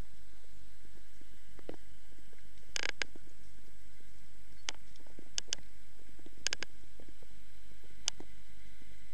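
Steady low rumble with a faint hum, broken by a handful of short clicks and taps.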